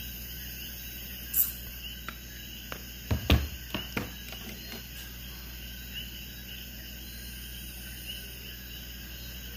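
Steady room hum with faint, repeated cricket chirps, broken by a few sharp knocks and taps about three seconds in.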